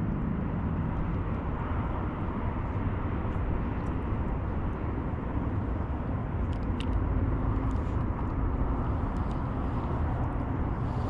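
Steady wind rumbling on an action-camera microphone, an even noise heaviest in the low end, with a few faint ticks in the middle.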